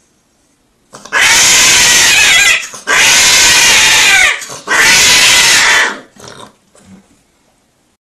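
Cat yowling three times, each cry loud and distorted and about a second and a half long, then a few faint sounds as it fades out.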